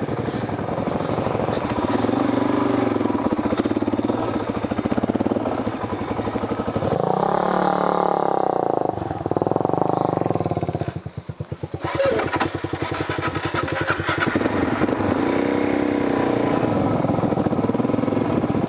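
Suzuki DR-Z400's single-cylinder four-stroke engine under way on a dirt trail, revving up and falling back with the throttle. It drops to a low chug about eleven seconds in, then picks up again.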